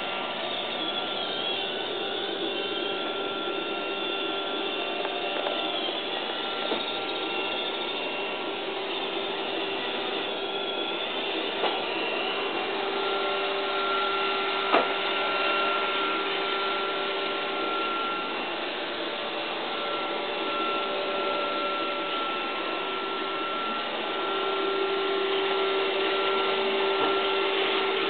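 Robot vacuum cleaner running with a steady whir and hum, broken by a few brief knocks, the sharpest about halfway through; it gets a little louder near the end.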